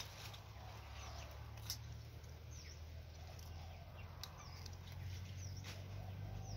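Faint high bird chirps repeating about once a second, with three sharp clicks and a low steady rumble underneath.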